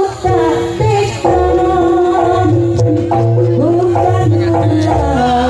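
Live Javanese jaranan music: steady hand-drum and gamelan percussion under a wavering, sliding melody line.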